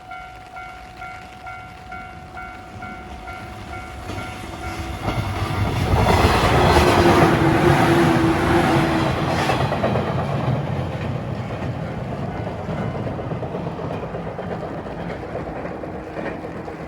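Railway level crossing warning bell ringing in a steady repeated ding, about two a second. About five seconds in, a passing train drowns it out, loudest a second or so later and fading slowly toward the end.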